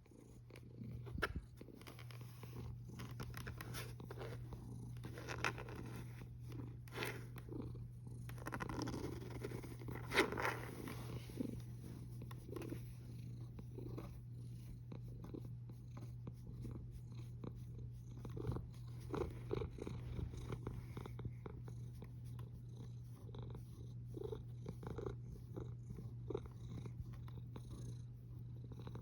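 Domestic cat purring steadily, a quiet low rumble with small soft clicks running through it.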